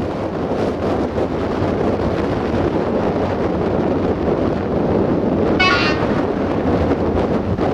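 Steady wind noise on the microphone over a low rumble that slowly grows louder, broken about five and a half seconds in by one brief, high-pitched toot of a distant train horn.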